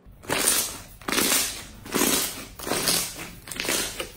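Hands pressing and kneading a sheet of clear purple slime: a run of wet squishing presses, about one a second, as the slime is pushed together.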